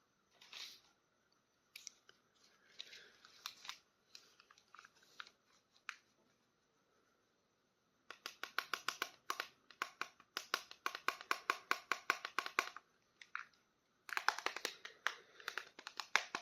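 Toy packaging being opened by hand: scattered light crinkles and rustles, then a fast run of sharp clicks or snips for about five seconds, then a burst of close crinkling near the end.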